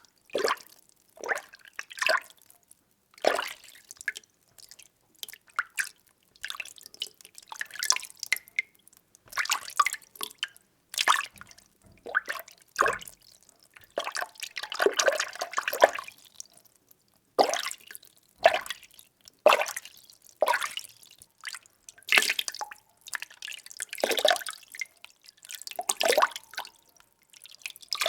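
Water being stirred, in short sloshing strokes about once a second, with a longer swirling stretch about halfway through.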